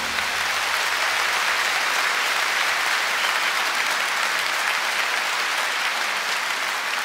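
Audience applause: many people clapping in a steady, even wash that eases slightly near the end.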